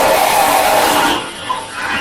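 A man yelling angrily: one long, strained shout for about a second, breaking off, with another starting near the end.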